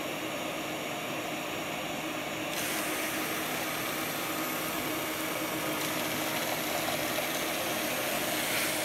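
Roborock S7 robot vacuum running a cleaning cycle: a steady whir of its suction fan and motors, growing a little louder and brighter about two and a half seconds in. It is running normally after repair of its cliff-sensor error 4.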